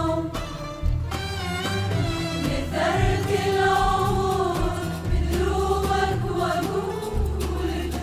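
A women's choir singing an Arabic song, backed by a small Arabic ensemble of violins, qanun and frame drums.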